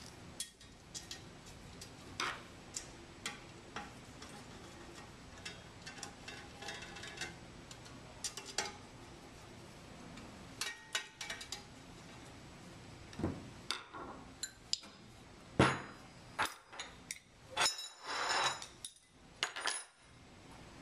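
Metal hand tools and small fasteners clicking and clinking against the metal housing of a sampler as it is reassembled, in scattered short taps. There is a sharper knock about two-thirds of the way through and a brief scraping rattle near the end.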